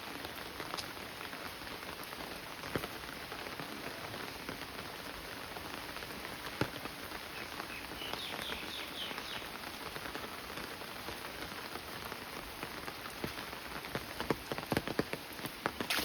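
Steady monsoon rain falling on wet ground and surfaces, with individual drops ticking throughout and a cluster of louder, closer drops near the end. A brief high twittering sounds about halfway through.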